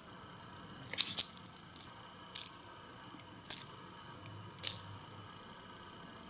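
Small crisp clicks and crinkles from handling tiny plastic miniature cookies and setting them into a paper-lined miniature bowl, about six sharp ticks spread over a few seconds.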